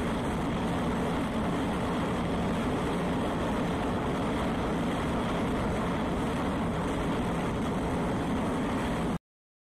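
Steady low rumble and rush of the icebreaker USCGC Polar Star underway, heard on deck: ship machinery with wind noise. It cuts off suddenly near the end.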